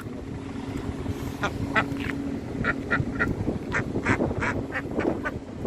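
Ducks quacking: a dozen or so short, sharp calls in irregular succession, starting about a second and a half in.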